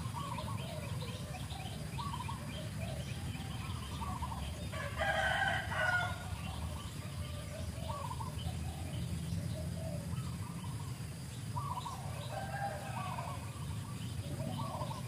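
Outdoor ambience of many short chirping animal calls over a steady low hum, with one louder, longer call about five seconds in.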